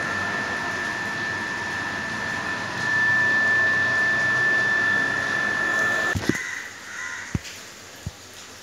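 Water filter plant running with a steady high-pitched whistle over a rushing hiss, which cuts off abruptly with a knock about six seconds in; two light clicks follow.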